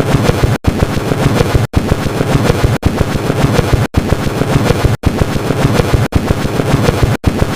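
Designed mech sound effect: a loud, dense mechanical rattle with a low rumble underneath. It is looped, with a brief cut about once a second.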